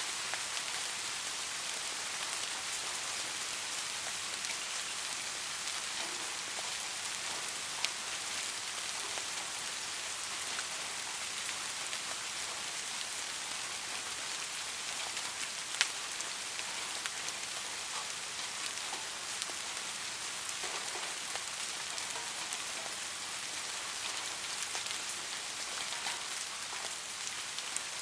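Steady rain falling, an even hiss with scattered sharper drop ticks, a slightly louder one about 8 s and about 16 s in.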